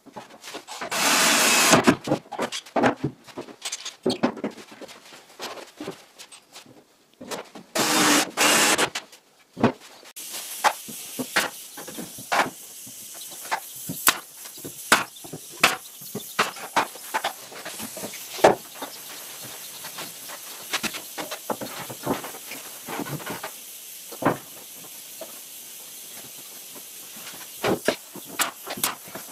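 Cabinet-fitting work on wooden panels: a cordless drill running in two bursts of about a second each, then a long run of sharp clicks and knocks over a steady hiss.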